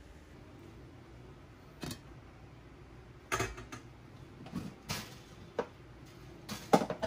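Kitchen handling sounds: scattered knocks and clatters, starting about two seconds in and loudest near the end.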